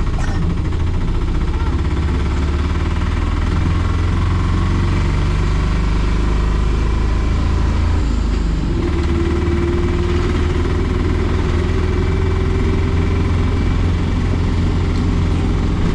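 Auto rickshaw engine running as it drives along a road, heard from inside the open passenger cabin. A steady drone whose note dips and changes about halfway through, followed by a steady higher hum.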